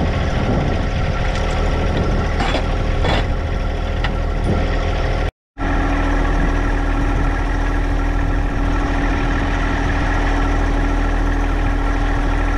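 An engine idling steadily, with a few light metallic clanks in the first few seconds. The sound cuts out for a moment about five seconds in, then the steady hum resumes.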